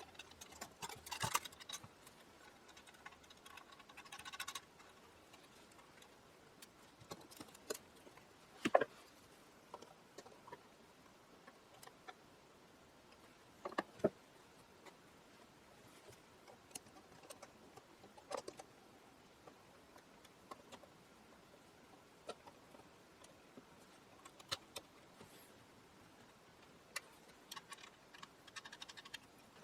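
Scattered small clicks, taps and clinks of screws, nuts and tools as parts are mounted on an antique radio's faceplate, with a short rustling scrape near the start.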